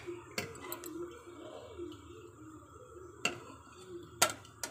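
A few sharp, widely spaced clinks of a metal serving utensil against a stainless steel plate as gravy is served, the loudest about four seconds in.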